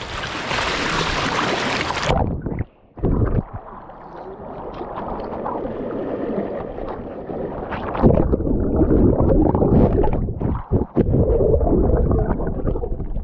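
Sea water splashing around a striped bass being released by hand at the water's edge. About two seconds in the microphone goes underwater: the hiss cuts off and turns to muffled gurgling and sloshing, louder in the second half.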